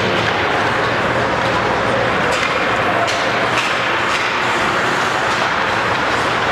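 Steady hum of an indoor ice rink during a hockey game, with a few short clicks and scrapes from sticks, puck and skates on the ice.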